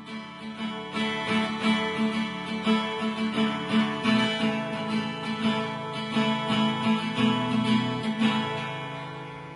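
Intro music: a strummed acoustic guitar, fading out near the end.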